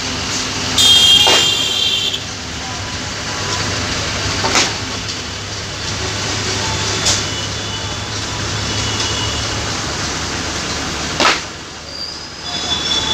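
Steady vehicle noise with a low hum, broken by a brief high-pitched tone about a second in, a few short sharp knocks, and a thin high tone near the end.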